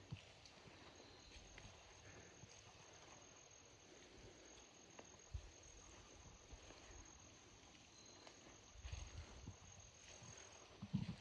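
Faint, steady high-pitched trill of insects in the field, which stops shortly before the end, with a few soft low thumps.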